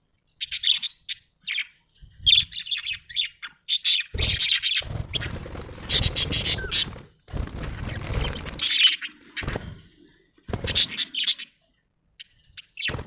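Budgerigar chirping in short, rapid bursts of high chirps, with a stretch of low rustling noise under the chirps from about four to nine seconds in.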